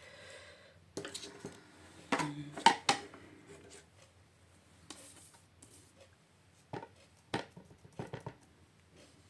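Scattered taps and clacks of stamping supplies being handled on a work table, a stamp set and ink pad in use, with a cluster of knocks about two seconds in and a few sharper taps near the end.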